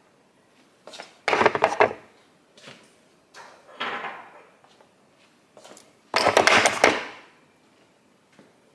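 A kitchen drawer holding spice jars sliding on its runners twice, about a second in and again about six seconds in, with lighter knocks between.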